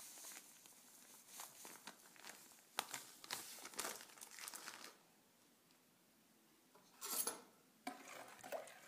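Plastic bag of sugar crinkling and rustling as sugar is poured from it, in scattered crackles for about five seconds, then quiet, with another short burst of crackling about seven seconds in.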